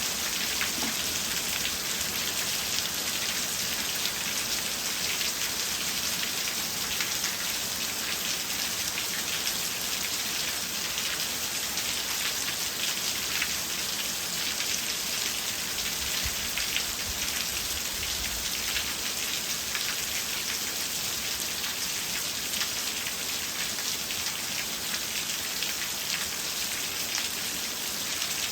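Steady rain falling, a continuous patter of many small drop hits.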